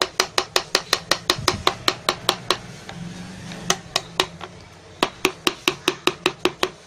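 A thin metal spatula tapping quickly and evenly against a small tray while working a white milk-and-herb paste, about five or six sharp clicks a second. The tapping stops about two and a half seconds in, returns as a few scattered taps, then runs fast again before stopping shortly before the end.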